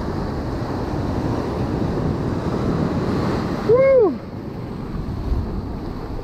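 Surf washing up over sand and against boulders in a steady rush, with wind on the microphone. About four seconds in, a brief loud cry rises and then falls in pitch over the noise.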